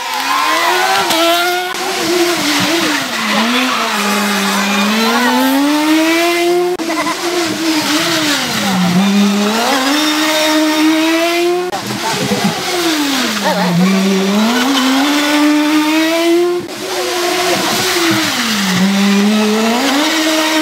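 Small hatchback rally cars taking a tight bend one after another. Each engine drops in pitch as the driver lifts and brakes into the corner, then revs climb steeply as the car accelerates out; this happens about four times, each pass cut off abruptly by the next.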